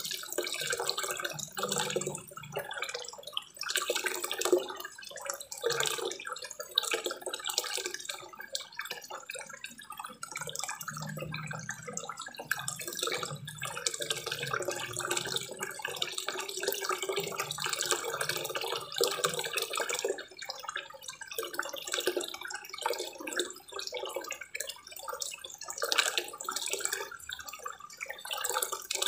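Water pouring from a small spillway waterfall into a koi pond, a continuous splashing patter.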